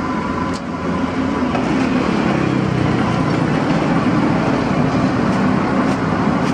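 A steady, loud low rumble of a running vehicle engine mixed with street traffic noise, with a few faint clicks.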